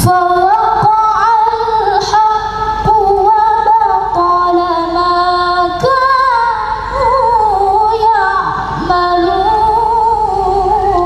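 A woman's voice reciting the Qur'an in melodic tilawah style: long held notes that waver through ornamented turns, with two short breaks between phrases.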